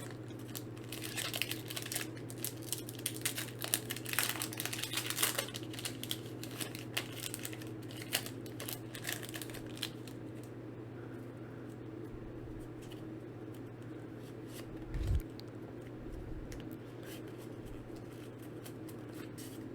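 Foil booster-pack wrapper of a Pokémon card pack crinkling and tearing open, a dense run of crackles over the first half, then quieter handling. A low steady hum sits underneath, and a single soft thump comes about fifteen seconds in.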